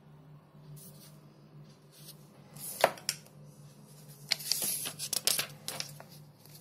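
Pages of a paper booklet being turned by hand. There is a sharp paper snap about three seconds in, then a run of rustles and flicks about a second later.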